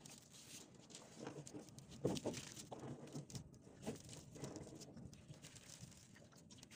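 Irregular rustling and small knocks of a mesh net fish trap being hauled and handled, with one brief louder noise about two seconds in.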